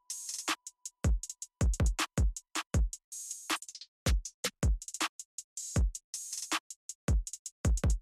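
Background electronic music: a drum-machine beat of deep kick drums that drop in pitch, with sharp hi-hat and snare hits and dead silence between them.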